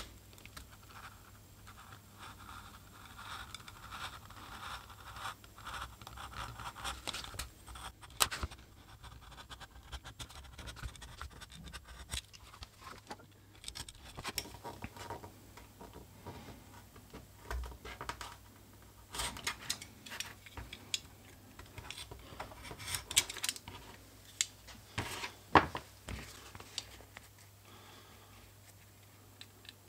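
Snap-off utility knife blade scratching through leather on a cutting mat, in a series of short drawn cutting strokes, with a few sharp clicks and taps from handling the knife and leather later on.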